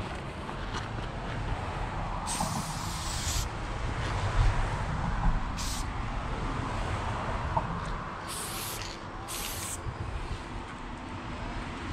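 Aerosol spray paint can fitted with an Astro fatcap hissing in four short bursts: the first about a second long, a brief one in the middle, and two more in quick succession near the end. A steady low rumble runs underneath.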